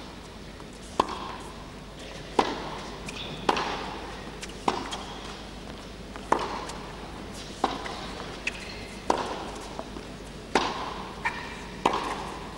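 Tennis rally: racquets striking the ball back and forth, about nine sharp pops roughly every second and a half, each with a short echo off the indoor arena. Smaller knocks from the ball bouncing fall in between.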